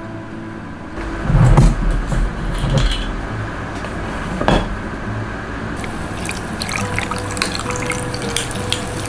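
Drinks poured over ice into a stainless-steel tumbler. Near the end, sparkling water poured from a plastic bottle fizzes, and the ice crackles.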